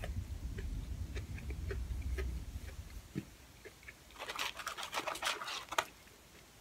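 Close-miked chewing with small wet mouth clicks for the first couple of seconds. About four seconds in comes a crinkly rustle of the paper fry container and fries as curly fries are picked out by hand, lasting a second and a half.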